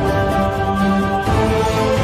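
Background music: held chords over a steady low beat, shifting to a fuller sound a little past a second in.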